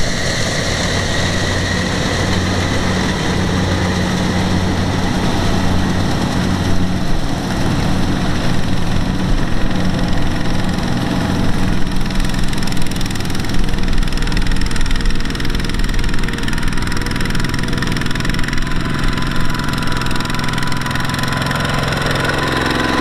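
Single-cylinder diesel engines of two-wheel walking tractors running steadily with a diesel knock as they pull trailers loaded with sacks of rice.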